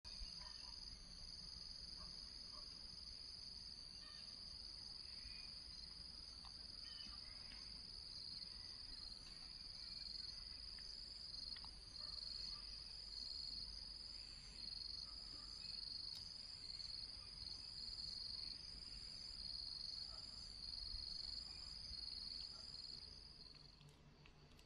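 Steady, high-pitched, shrill chorus of insects trilling, with a slight even pulsing; it stops near the end.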